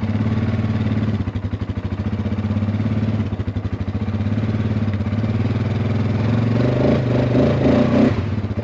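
Four-wheeler (ATV) engine running at a steady idle with an even firing pulse. From about six and a half seconds in it is given a little gas and held there, running louder under load as it pulls against the stiff, rusted-in reach pole of the hay wagon.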